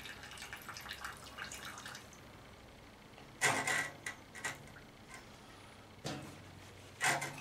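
Old gasoline trickling and dripping from a disconnected carburetor fuel line into a ceramic coffee mug, then a few hard knocks as the mug is handled and set down, the loudest about halfway through.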